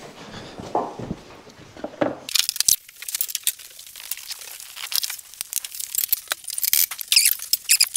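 A couple of dull knocks, then from about two seconds in a dense, irregular crackling and crinkling of plastic sheeting being handled and pressed.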